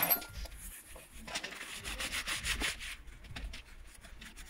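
Brisk scratchy rubbing on a plastic computer keyboard. A quick run of strokes comes in the middle, then tails off.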